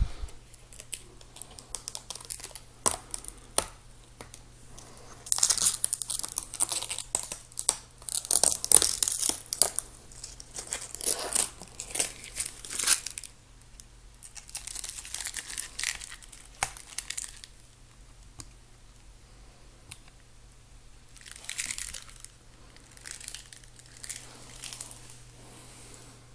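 Packaging wrap crinkling and rustling as it is handled, in several irregular bursts, with a few light clicks in the first few seconds.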